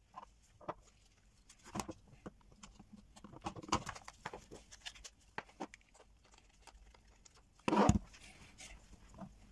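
A small plastic device housing handled on a workbench: scattered clicks, taps and rustles, with one louder short thump near the end.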